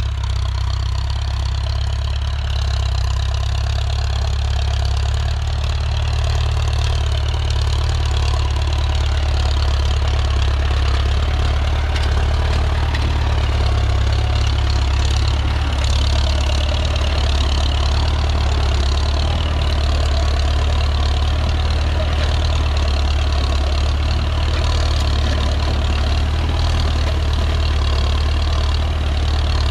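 Ford 6610 tractor's diesel engine running steadily.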